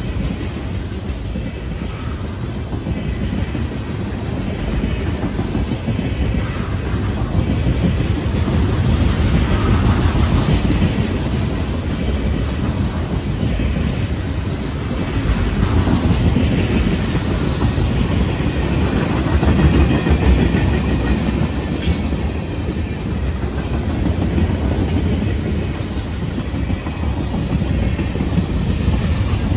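Hopper and tank cars of a freight train rolling past: a steady rumble of steel wheels on the rails with clickety-clack over the joints, swelling and easing a little as the cars go by.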